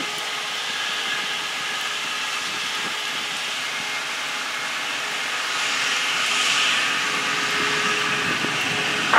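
Pettibone Speed Swing hi-rail machine running along the track, dragging a string of ribbon rail on rail carts, over a steady hiss of rain. The hiss carries faint steady tones and grows a little louder about six seconds in.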